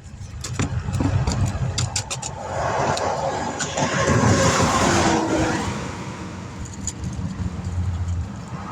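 Interstate traffic going by: a steady low rumble, with one vehicle's passing swelling up and fading away in the middle. A few light clicks and clanks of handled equipment come in the first couple of seconds.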